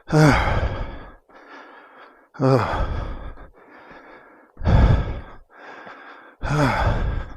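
A man breathing hard, out of breath from climbing a long flight of stairs: four heavy exhalations about two seconds apart, each starting with a falling, voiced groan, with quieter inhalations between.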